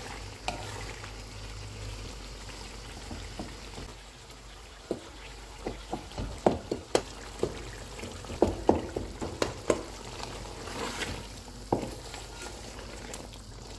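Wooden spatula mashing tomatoes and scraping against a metal karahi, with a cluster of sharp knocks and taps from about five to ten seconds in. Under it, mutton and tomatoes sizzle steadily in oil and juices over a medium flame.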